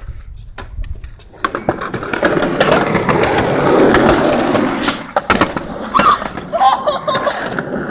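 Skateboard wheels rolling over pavement, building up and holding, with a few sharp clacks of the board.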